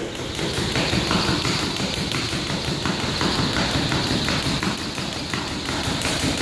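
Speed jump rope on a wooden floor: the rope ticking and the jumper's shoes tapping in a rapid, even rhythm.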